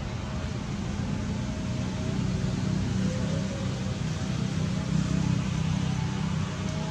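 An engine running steadily, a little louder from about two seconds in, with faint voices in the background.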